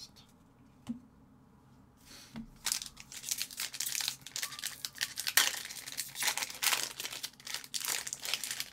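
Foil trading-card pack wrapper being torn open and crinkled by hand: a light click about a second in, then a run of crackling and tearing from about two and a half seconds in.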